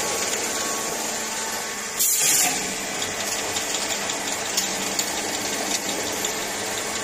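Automatic CNC busbar processing machine running, a steady mechanical hum with several held tones, as a copper or aluminium bar is fed through and out onto its conveyor. About two seconds in comes a short, loud hissing burst, with a few light clicks afterwards.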